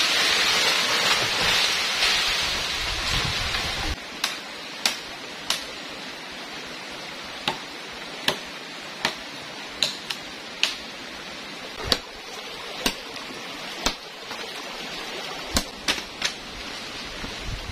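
Steady noise of flowing river water for the first four seconds. Then, after a cut, comes a series of sharp machete chops into green branches, roughly one a second and irregularly spaced, over the quieter sound of the stream.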